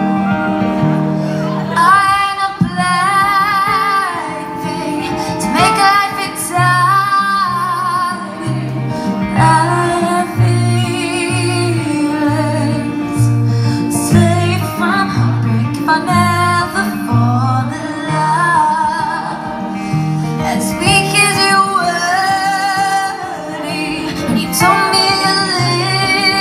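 Live music: a woman singing long wavering notes in phrases over a played acoustic guitar.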